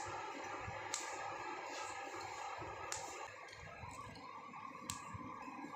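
A few sharp clicks and snaps, about a second apart, as fresh taro stolons are broken and peeled by hand. They sit over a steady background hiss.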